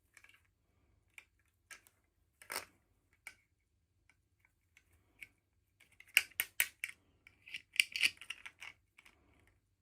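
Small hard plastic pieces clicking and packaging crinkling as toys are handled and unboxed, in scattered taps, then a quick run of sharp clicks about six seconds in and a short crinkly rustle just after.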